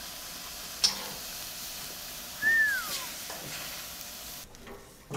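Swordfish steaks sizzling on a gas grill while they are moved with metal tongs. A sharp click comes about a second in, and a short falling squeak sounds midway. The sizzle cuts off near the end.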